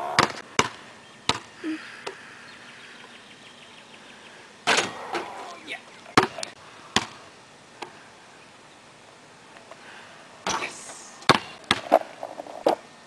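A basketball bouncing on a concrete driveway and striking the hoop: a scattered series of sharp thuds and bangs with quiet gaps between, bunched near the start, around the middle and near the end.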